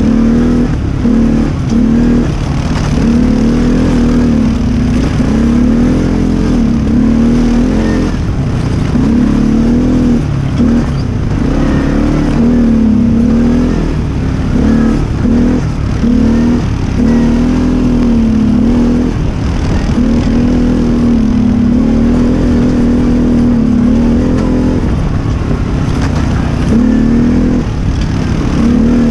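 ATV engine running close up while riding, its revs rising and falling again and again as the throttle is worked.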